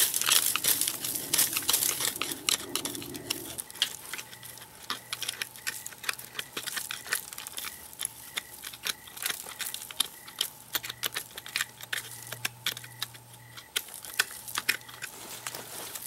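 Bare hand digging and scraping through dry leaves, twigs and dirt: a dense, irregular run of crackles and rustles, heavier in the first few seconds.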